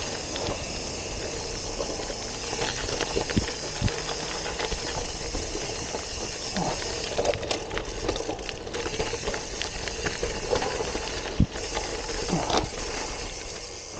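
Gravel bike riding over a bumpy dirt forest trail: steady tyre and riding noise with frequent rattles and knocks from the bike over the rough ground.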